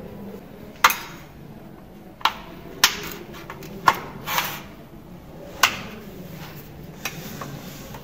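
A series of about seven sharp clicks and knocks as a vacuum pump's power cable is handled and its plug pushed into a power strip, with two knocks close together about four seconds in.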